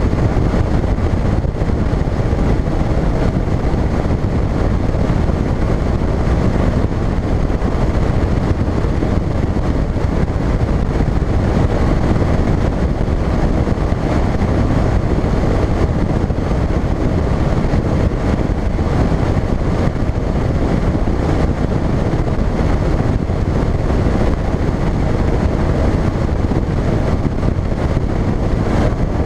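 Phoenix bass boat running across open water at speed: a steady, loud rush of wind on the microphone mixed with the outboard motor and the hull on the chop.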